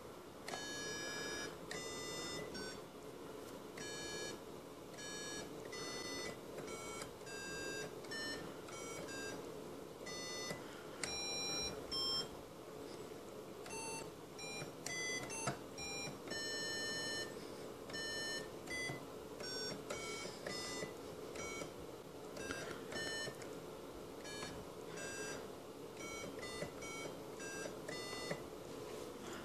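Plain electronic beep-like synth notes played from a small MIDI keyboard: a run of short notes at changing pitches, some held a little longer, over a steady hum.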